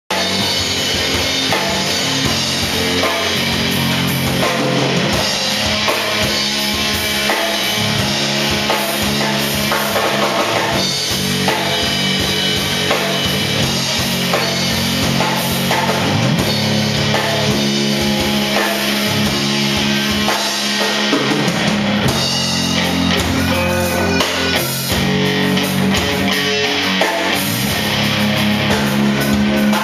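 Live rock band playing: electric guitars through amplifiers over a drum kit, loud and continuous.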